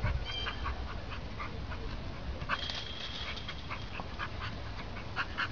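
A dog panting in a run of short, irregular breaths while it plays with a ball.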